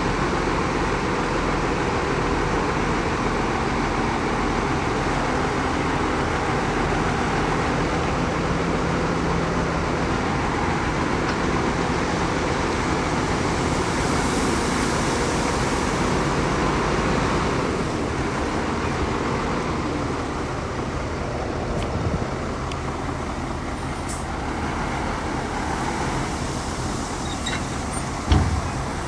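Heavy diesel earthmoving machinery running steadily, with one short thump near the end.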